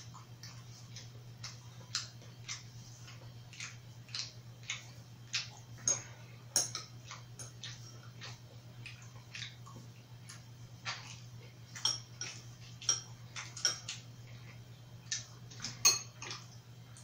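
Metal chopsticks and a spoon clicking and scraping against ceramic bowls: irregular sharp clicks, a few with a short ring, over a steady low hum.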